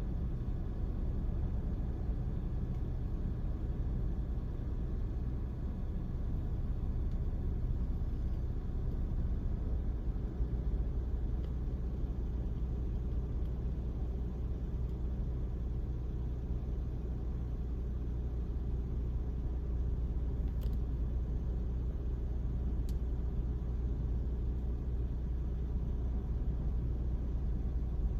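Steady low rumble of ocean surf breaking on the beach under a typhoon swell, with no single wave crash standing out.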